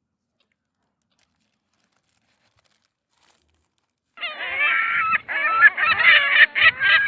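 Seagulls calling after about four seconds of near silence: a loud, rapid run of squawking calls with bending pitch.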